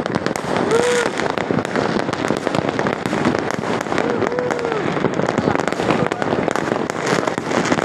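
Many fireworks and firecrackers going off at once across a town: a dense, continuous crackle of overlapping pops and bangs.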